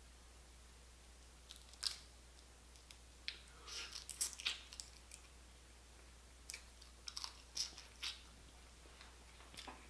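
Boiled blue crab being picked apart by hand and eaten: irregular clusters of small crackles and clicks from the shell being broken and the meat pulled out, with chewing and mouth sounds.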